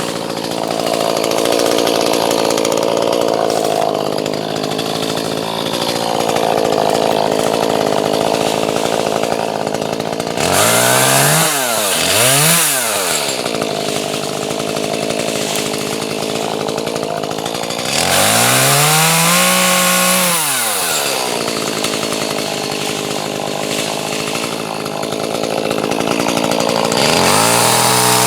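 Gas chainsaw cutting through a log, running steadily under load. Twice in quick succession a little past a third of the way in, once more about two-thirds in, and again near the end, its engine pitch rises and falls as it is revved.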